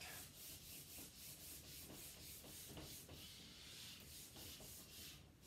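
Whiteboard eraser rubbing across a whiteboard in quick, faint back-and-forth strokes, about four a second.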